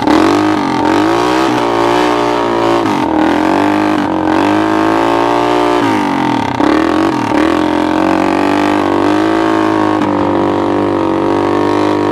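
Honda TRX200SX single-cylinder four-stroke ATV engine, fitted with a makeshift muffler, driving a converted golf-cart UTV under way. Its revs dip and climb again several times as the throttle is eased off and reapplied.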